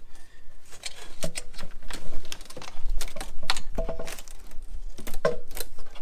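Irregular clicks and knocks of parts and fittings being worked loose by hand in a car's engine bay, a few of the knocks ringing briefly.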